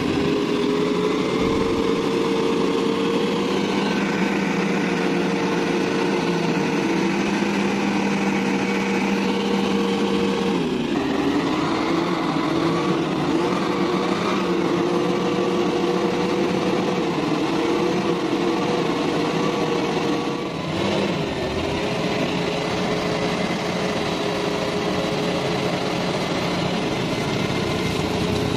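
Mitsubishi Fuso truck's diesel engine running hard at high revs under load as it churns through deep mud, with its pitch dropping and settling again about a third of the way in and once more about two-thirds in.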